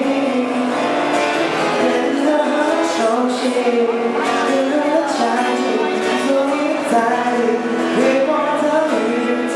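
Live acoustic guitar strumming, with a harmonica in a neck holder playing the melody in long held notes over it.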